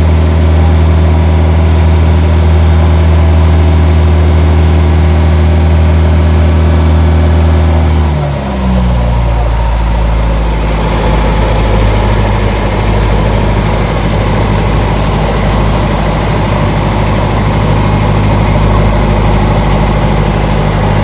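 Heavy engine running steadily with a deep, even drone. About eight seconds in, the sound shifts abruptly to a lower, rougher engine drone with more hiss over it.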